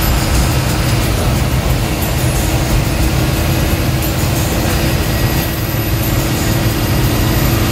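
Ashok Leyland BS4 bus's diesel engine running steadily, with road and cabin noise from the moving bus and no changes in pitch or level.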